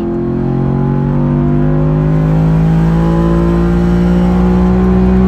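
Ford F-150's 5.0 V8, fitted with a ported Boss intake manifold and tune, pulling hard at wide-open throttle in third gear, heard from inside the cab. The engine note climbs slowly and steadily in pitch as the truck accelerates in one gear, with no shift.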